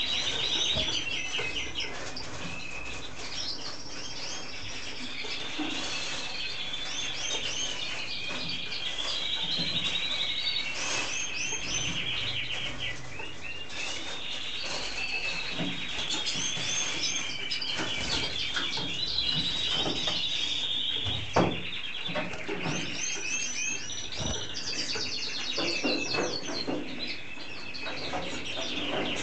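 Male red mosaic canary singing a long, continuous song of rapid trills and chirps. About two-thirds of the way through there is one sharp knock, the loudest moment.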